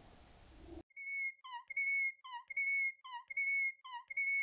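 Whistle-like outro jingle: a repeating two-note figure, a held high note alternating with a short lower note that dips and rises again, about every half second, starting about a second in.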